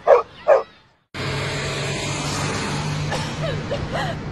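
A dog barks twice in quick succession. After a short gap, a steady background noise with a low hum begins.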